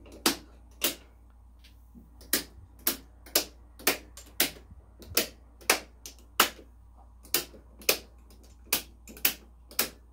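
Circuit breakers in a Siemens panel being switched on by hand one after another. Each makes a sharp snapping click, roughly two a second and unevenly spaced.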